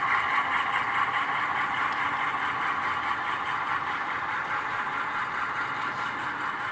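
Model freight train rolling past on the layout's track: a steady mechanical running sound that slowly fades as the model diesel locomotives pull away.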